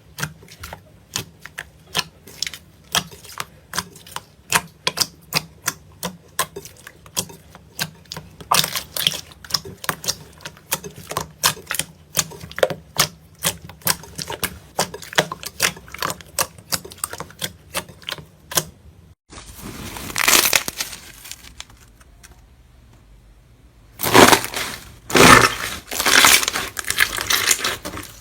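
Slime being handled: a long run of sharp clicking pops, several a second. About two-thirds of the way through it cuts to louder crunchy, crackling squishes.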